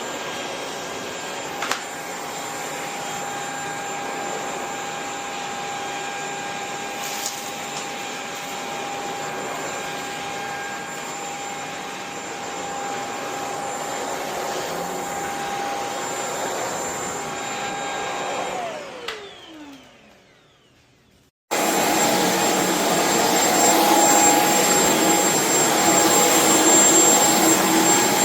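Shark PowerDetect corded stick vacuum running steadily with a high motor whine. About 19 s in it is switched off and the whine falls away as the motor spins down. After a couple of seconds of quiet the vacuum is running again, louder.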